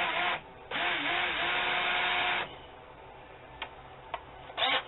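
Cordless drill boring into a 440C stainless steel knife tang held in a vise, running in bursts: one run of about two seconds whose motor whine wavers as it spins up and then holds steady before stopping. Two sharp clicks follow, then a brief double burst of the drill near the end.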